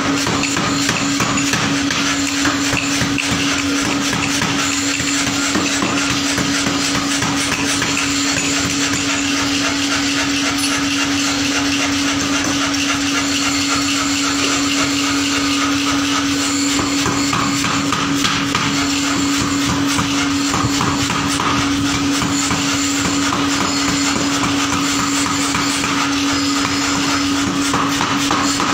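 Blacksmith's forge: rapid, continuous metal hammer blows over a steady machine hum.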